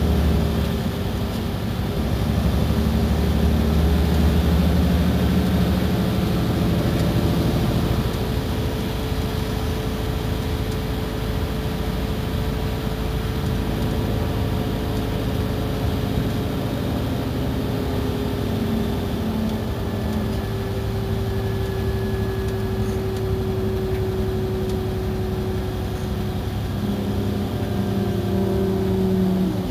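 Iveco Crossway bus's diesel engine running while the bus is under way, with a steady whine that slowly falls in pitch. The engine note changes about six and eight seconds in, and the pitch dips and rises briefly near the end.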